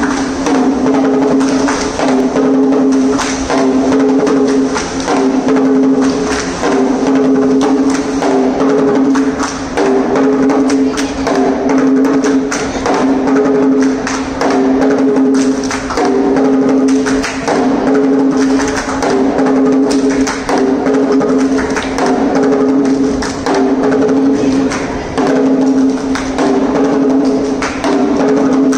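Kerala chenda melam: a group of chenda drums beaten with sticks in a fast, dense rhythm that swells in a repeating cycle about every two seconds, with a steady held tone underneath.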